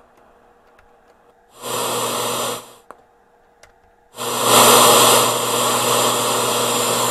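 Panasonic radio-cassette player's speaker hissing with untuned radio static over a low steady hum. The hiss comes on about a second and a half in and stops after about a second, with a couple of small switch clicks after it. It comes back louder about four seconds in and holds steady.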